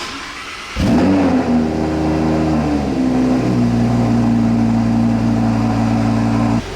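A car engine starts, flares briefly and settles into a steady idle, then cuts off abruptly near the end.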